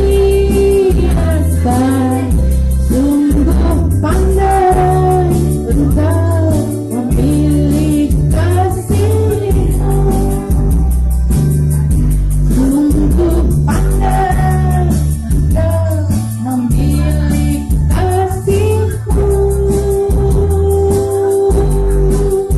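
Women singing karaoke into a handheld microphone over a backing track with a steady bass line, holding a long note near the end.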